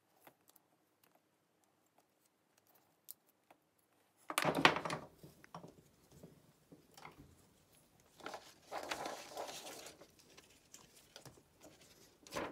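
Handling noises at a workbench: almost silent at first, then a loud rustling clatter about four and a half seconds in, a few small clicks, a longer rustle a few seconds later, and a paper rustle near the end as a sheet of paper is picked up.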